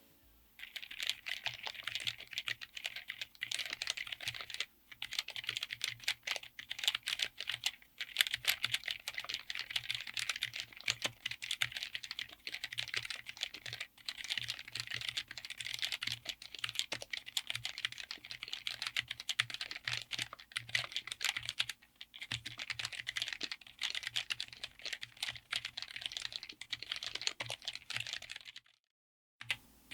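Continuous fast typing on a mechanical keyboard with vintage Taiwan Jet Axis white/clear linear switches, mounted on an FR4 plate in an aluminium case. It is a rapid, dense clatter of keystrokes with a few short pauses, and it stops just before the end.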